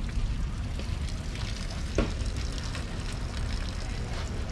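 Wind rumbling on the microphone, with light crackling and splashing of water as bass are handled over the weigh-in sink and dropped into the weighing basket. A single knock sounds about two seconds in.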